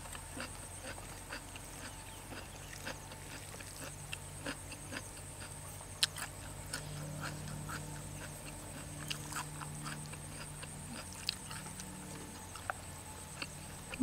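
Close-up eating sounds: wet chewing clicks and smacks as a person chews beef noodle soup, with a steady faint insect drone behind.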